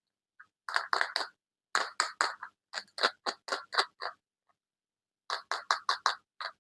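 Packaging from a surprise egg or box being opened by hand: quick runs of short crinkling, crackling sounds, about four runs of several crackles each with brief silences between.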